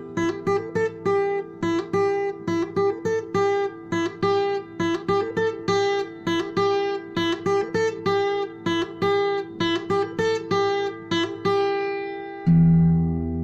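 Instrumental music: a plucked acoustic guitar picks a steady pattern of notes, two to three a second. Near the end a low sustained chord rings on.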